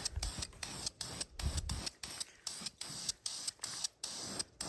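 Aerosol can of VHT high-temp engine enamel spraying in short, repeated bursts of hiss.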